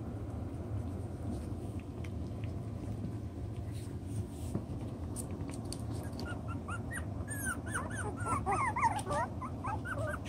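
Six-week-old toy poodle puppies whimpering and yipping: short, high squeaky cries that start about halfway through and come thicker toward the end, over a low steady hum.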